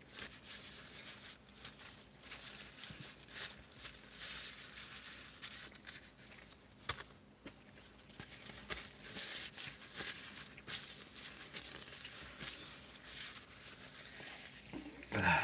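Paper burger wrapper rustling and crinkling in the hands, in short scratchy bursts with small clicks.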